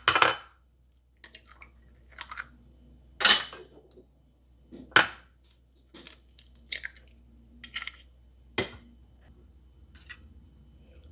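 Eggs cracked against the rim of a glass bowl: several sharp knocks a second or more apart, with small crackles of shell between. Near the end a fork begins to clink in the bowl as the eggs are beaten.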